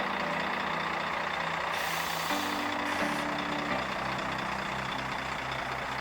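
Intro music with sustained low notes changing in steps and a pulsing beat, with a brief hiss about two seconds in.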